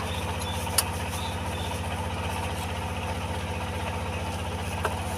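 Yanmar diesel engine idling with an even, steady chug. There is one sharp click a little under a second in.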